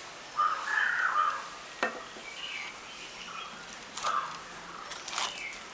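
Small birds chirping in the background, with a sharp click a little under two seconds in and a few lighter clicks near the end.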